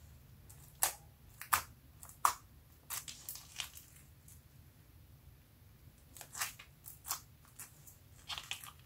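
Clear slime packed with foam beads being pressed and poked with fingertips, giving short crunchy crackles in irregular clusters, with a pause of about two seconds midway.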